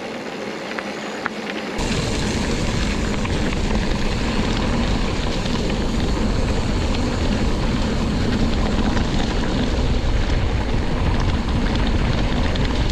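Wind rushing over the microphone while riding a mountain bike downhill, a steady noisy rush; a deep rumble cuts in suddenly about two seconds in.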